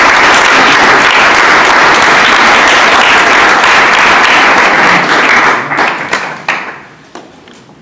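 Audience applauding: a loud, dense round of clapping that thins out about five seconds in to a few last claps and dies away.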